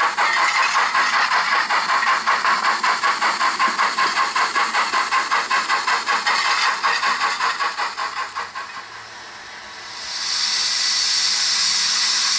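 Sound-fitted model 0-4-0 saddle tank steam locomotive Invincible: the speaker plays an even steam chuff as it runs, which fades away about eight seconds in. A steady steam hiss then comes in about ten seconds in as the engine stands.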